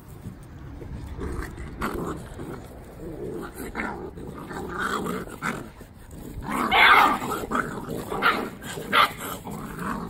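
Great Dane puppies play-fighting, growling and barking in irregular bursts that are loudest about seven seconds in.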